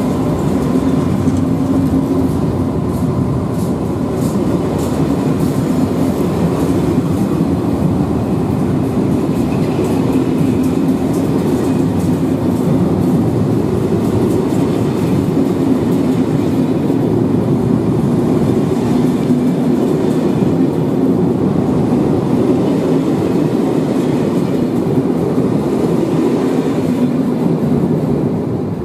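SNCF Corail passenger coaches rolling past along the platform: a steady, loud rumble of steel wheels on rail with faint clicking over the rail joints. It starts to fade at the very end as the last coach clears.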